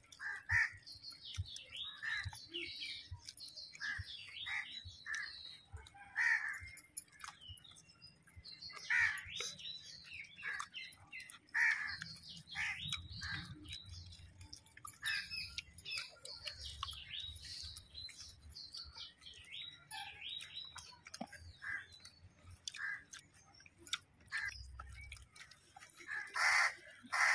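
Small birds chirping over and over in short calls, with a crow cawing loudly about a second before the end.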